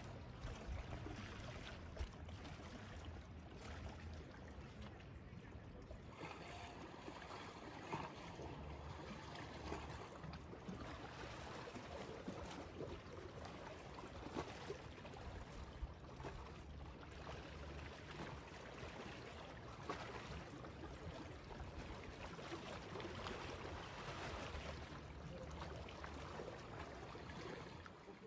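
Small waves lapping and splashing at the water's edge, a steady irregular wash with a faint low rumble underneath.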